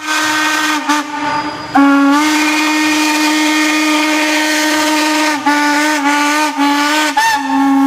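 Steam train whistle blowing in long, loud blasts, broken by a few short dips in pitch and level, over a hiss of steam.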